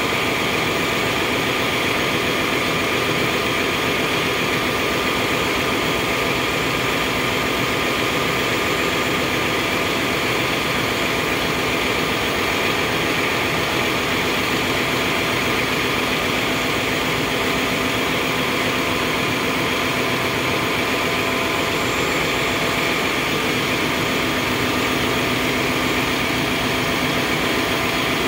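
Steady machinery drone of a ship's engine room, running engines and pumps making a continuous loud hum with a few steady tones over it.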